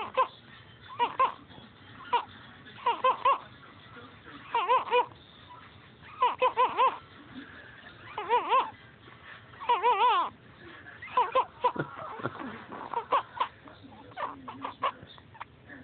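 Snoring: squeaky, high-pitched wavering snores in short pulsed bursts, one roughly every one and a half to two seconds, in time with the breaths. After about eleven seconds they become weaker and more irregular.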